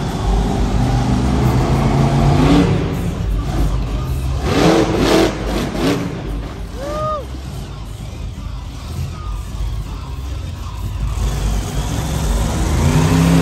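Monster truck engine revving in surges as the truck climbs onto crushed cars. It is loud and echoing in an indoor arena, louder early on and again near the end, with a quieter stretch in the middle.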